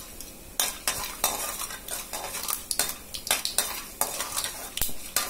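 A metal ladle scraping and stirring in a stainless steel kadai, about two strokes a second, over the sizzle of mustard seeds, urad dal, chana dal and peanuts frying in sesame oil for a tempering.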